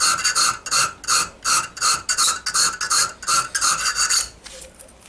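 A slim hand file rasping back and forth on the steel knuckles of a barrel hinge, about three to four strokes a second, stopping a little after four seconds in. The file is squaring the gaps between the knuckles so the two halves of the hinge will mesh.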